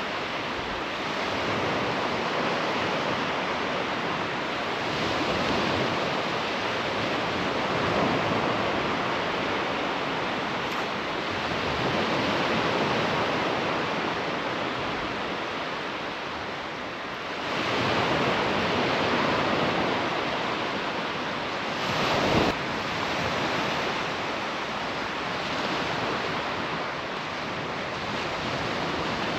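Surf breaking and washing up a sandy beach, a steady rush of noise that swells and ebbs every few seconds, with a short louder burst about two-thirds of the way through.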